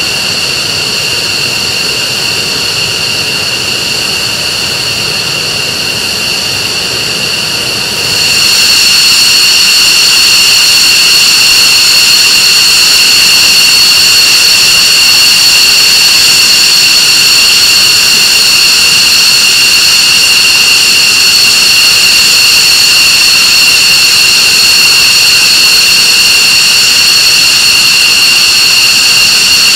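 F-15C Eagle jet engines (Pratt & Whitney F100 turbofans) running with a loud, steady high whine. About eight seconds in, the sound steps up, getting louder and brighter, then holds steady.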